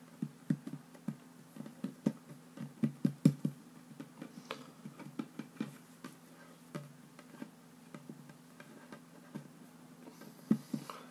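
Fingers patting and pressing play dough flat against a wooden tabletop: irregular taps and knocks, a busy run of them in the first few seconds and a couple more near the end, over a faint steady hum.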